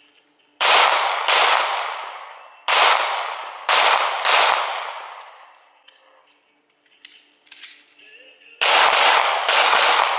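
Pistol shots fired in strings: two, then three, then after a pause with a couple of faint clicks, four in quick succession. Each shot is followed by a long fading echo.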